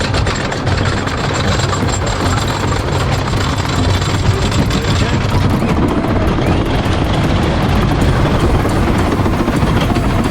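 Loud, steady low rumbling noise, with no clear voices or tune.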